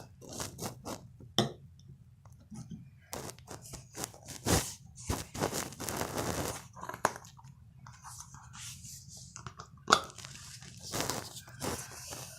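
Irregular crunching, crinkling and scraping handling noises, with a few sharp clicks (the loudest about ten seconds in) over a low steady hum.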